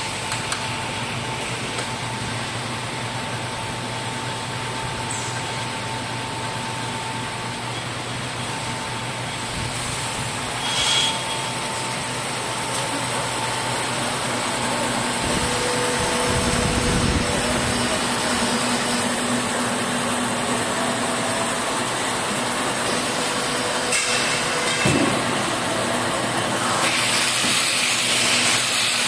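Belt baler-wrapper machine running, a continuous mechanical drone with faint steady whining tones and a few brief knocks, growing slightly louder through the second half.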